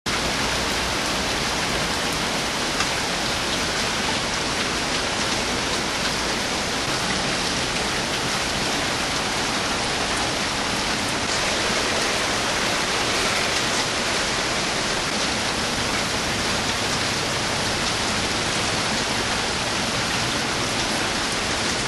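Steady, heavy rain falling, an even hiss of countless drops that stays at the same level throughout.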